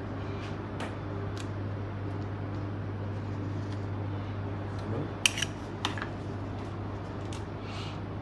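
Metal spoons clinking and scraping against a bowl and each other while rolling truffle balls through melted chocolate, in scattered light clicks with the sharpest few about five to six seconds in, over a steady low hum.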